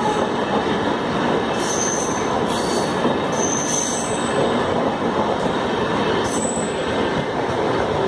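Passenger express train rolling past at speed, a steady rushing rumble of wheels on rail. High-pitched wheel squeals cut through three times, briefly, about two, four and six and a half seconds in.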